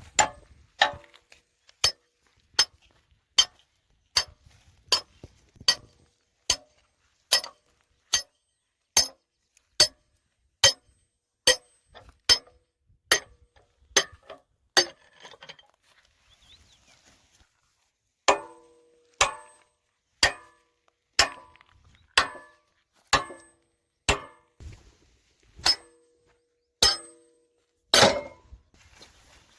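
Repeated sharp metallic strikes, like hammer blows on metal, about one every 0.8 seconds. They stop for a couple of seconds about halfway through, then start again with a ringing tone after each blow.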